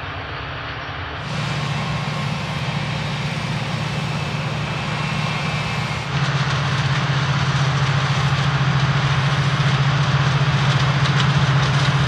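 Oxbo 9630 sweet corn harvester picking corn: a steady low engine hum under a broad mechanical rush from the machine working through the crop. The sound steps up in loudness about a second in and again about halfway.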